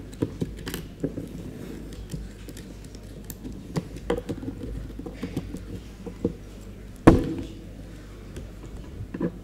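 Handling noise picked up by a microphone as equipment at a lectern is set up: scattered knocks, clicks and rustles, with one loud thump about seven seconds in.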